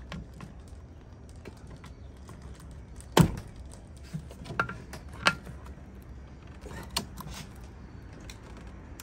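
A flat screwdriver prying at a coolant hose on a plastic coolant overflow tank: one sharp click about three seconds in, then a few lighter clicks.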